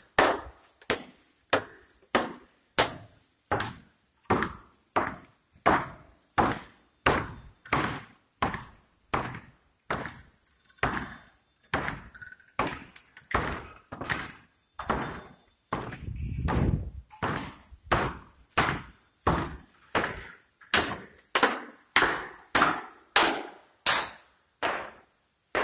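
Footsteps of someone walking steadily on a hard floor, about one and a half steps a second, each step with a short echoing tail in an empty building. About two thirds of the way through, a low rumble lasting about a second sounds under the steps.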